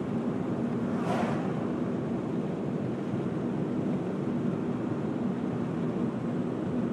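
A car driving on a highway: steady road and engine noise with a low hum, and a brief rushing hiss about a second in.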